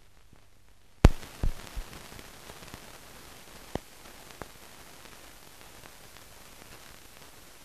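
Steady hiss with a sharp pop about a second in and a few smaller clicks over the next few seconds: the surface noise of a film transfer that has no soundtrack.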